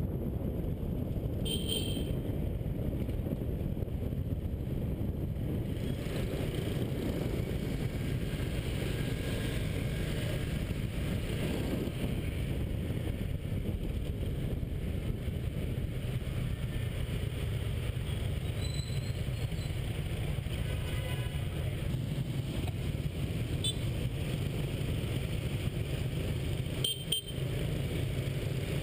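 Motorbike riding in city scooter traffic: a steady low rumble of engine and wind on an action camera's microphone, with a couple of brief high-pitched chirps.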